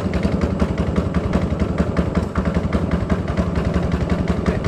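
Boat engine running steadily, a fast, even pulse of firing strokes.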